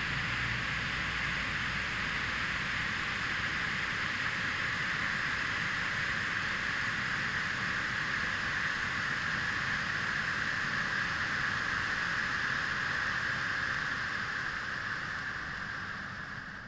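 Three orange Nico Bengal flares burning with a steady hiss, fading away near the end.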